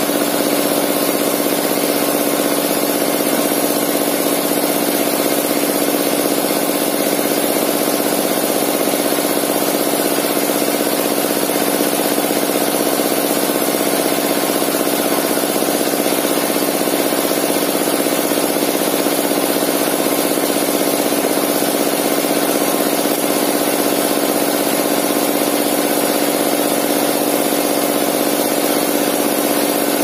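Sawmill circular saw and its drive engine running steadily, a constant-pitched mechanical drone with no change in speed.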